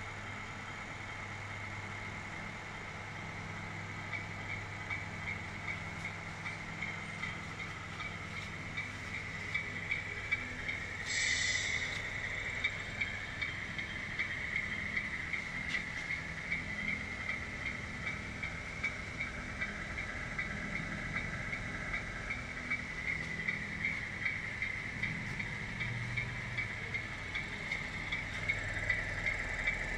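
RC truck's electronic sound unit playing a steady diesel engine idle, with a hiss and a faint regular pulse; it grows slightly louder as it goes on.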